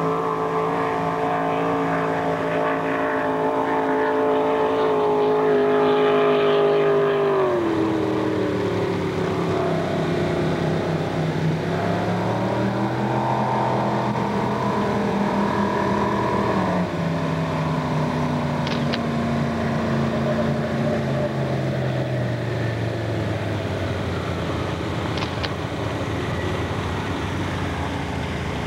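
Inboard racing boat engines running at high speed on the water. The pitch holds steady, drops sharply about seven seconds in, then rises and falls again in the middle as the boats pass.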